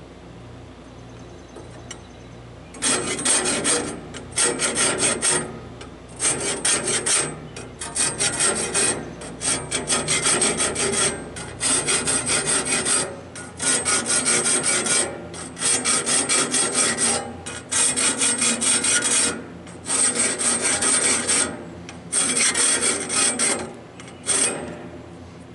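Hand file scraping across the steel teeth of a Wood-Mizer LT15 bandsaw blade, sharpening them. It comes as about a dozen short bursts of quick rasping strokes with brief pauses between, starting about three seconds in and stopping just before the end.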